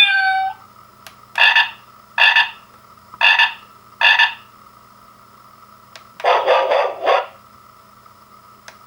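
Avantek D-3B wireless doorbell receiver playing one of its animal-sound melodies, a recorded frog croaking: four short croaks about a second apart, then a longer rattling croak about six seconds in.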